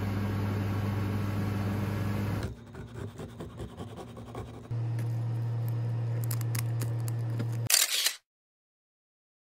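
A steady low hum, then light clicks and scrapes of a knife and metal tongs against a plate as a baked pastry is cut. A second steady low hum follows, with a few loud bumps just before the sound cuts off to silence.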